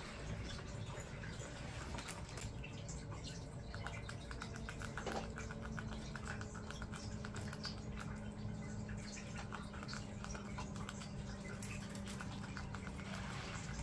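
Pet rats scratching and nibbling about their play area: a dense run of small, quick clicks and scratches, thickest in the middle.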